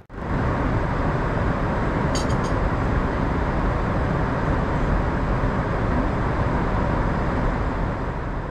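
Steady rushing cabin noise of a Boeing 747-8 in cruise flight, the airflow and engine noise heard inside the cabin, with a few faint high clicks about two seconds in.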